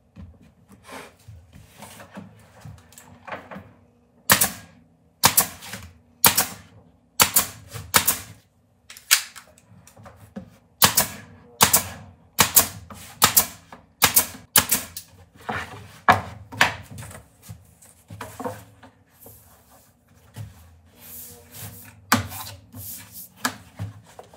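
Nail gun firing about twenty sharp shots, roughly one a second, driving nails through a plywood panel into its wooden frame. Softer scraping and knocking of the panel being handled come before and after the run of shots.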